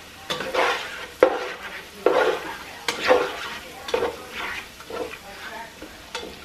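Spatula stirring and scraping diced chicken around a frying pan, about one stroke a second, with a few sharp clacks of the utensil on the pan. The chicken sizzles underneath.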